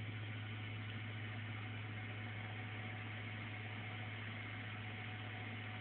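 A steady low hum under a constant hiss, unchanging throughout, like a fan or appliance running, with no calls from the bird.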